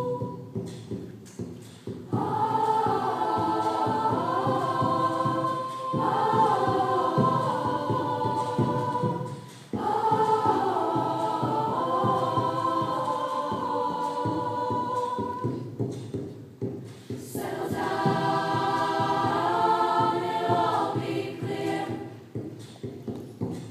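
Mixed school choir singing a pop song with keyboard accompaniment, in long phrases with short breaks between them, the longest break about two-thirds of the way through.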